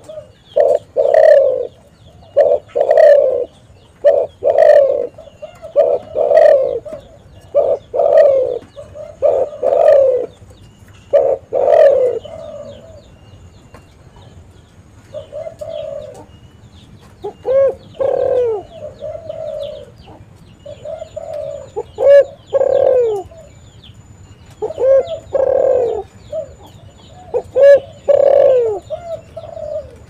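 Spotted dove (tekukur) cooing over and over: a quick run of short coos, a brief lull about halfway, then longer phrases with bending notes.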